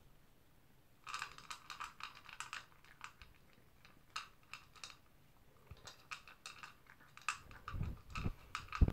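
Toy poodle eating from a plastic bowl: spells of crisp crunching and clicking, with short pauses between, and a few low thumps near the end.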